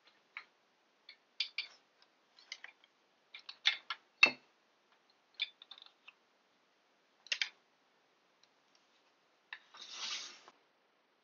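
Wooden-handled carving tools clicking and clacking as they are handled in a plastic tool case and set down on a cloth over a wooden table. There are a dozen or so short sharp clicks, the loudest a knock about four seconds in, then a brief rustle near the end.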